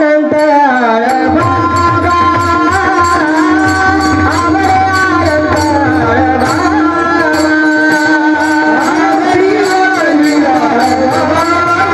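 Marathi devotional kirtan singing, with voices holding and bending long notes over brass tal hand cymbals struck in a steady rhythm; a drum joins about a second in.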